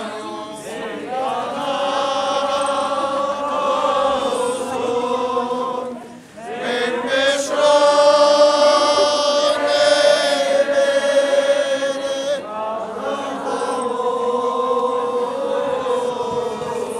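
A crowd singing together in long held notes. The singing dips briefly about six seconds in, then comes back louder.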